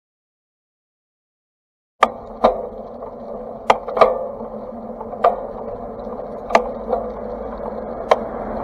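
After about two seconds of silence, loud sharp clicks, about seven over six seconds, from a 7-speed bicycle's gear shifter and rear derailleur as the rider shifts back and forth while riding, over steady road and wind noise. The derailleur will not go into seventh gear, which the rider puts down to the shift cable needing adjustment.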